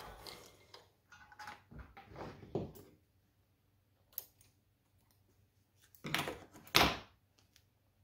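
Handling noises as stitched leather is drawn out from a sewing machine and its threads are trimmed with scissors: scattered rustles and light clicks, with two louder rustles close together late on. The machine itself is not running.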